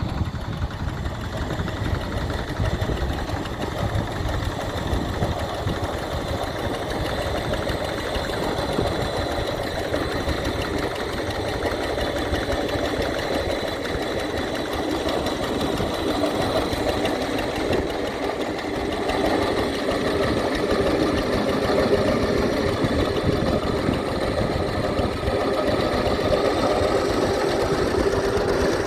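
Trusty Steed tractor engine running steadily with a fast, even chugging beat, growing a little louder in the last third.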